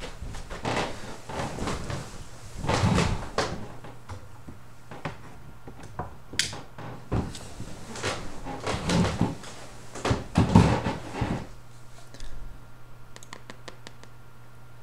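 Irregular knocks, bumps and rustling of someone handling objects in a small room, over a steady low hum. A short high squeak comes about six seconds in, and a quick run of light clicks near the end.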